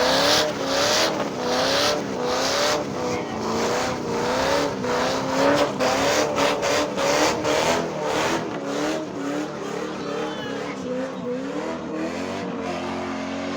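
Holden VT Commodore V8 doing a burnout. The engine note rises and falls about once a second as the throttle is worked, over squealing tyres, and the sound fades slowly near the end.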